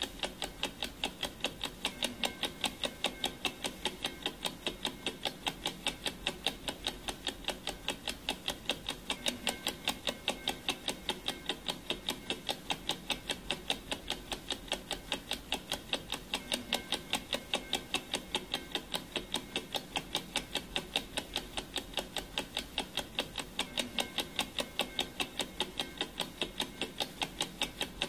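Clock ticking: a fast, even run of identical sharp ticks that never changes or stops.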